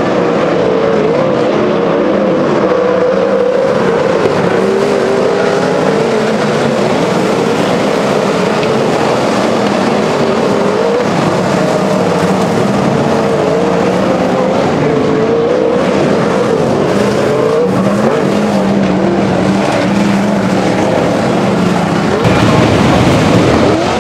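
Several winged sprint car V8 engines running loud and steady at moderate revs, their pitch wavering up and down. Near the end they get louder.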